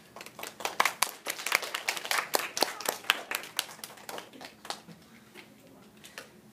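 A small audience of schoolchildren clapping: the applause builds quickly, thins out after about four seconds and ends with a few last claps.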